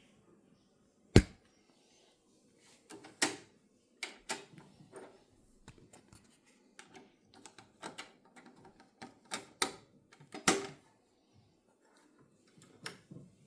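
Controls of a Kenwood KX-660HX cassette deck being worked by hand: one loud sharp click about a second in, then a run of irregular clicks and clacks.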